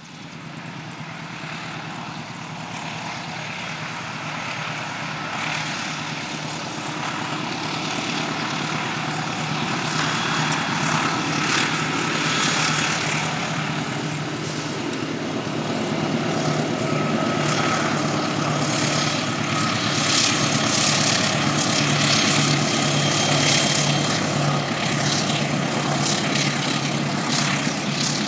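Diesel-electric locomotive engine running with a steady low drone, growing louder over the first ten seconds as the train approaches and then holding loud, with rapid clattering from the wheels and train over the top in the second half.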